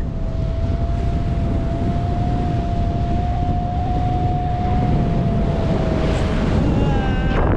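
Wind rushing over the microphone of a tandem paraglider in flight, with a thin steady whistle running through it that fades out near the end.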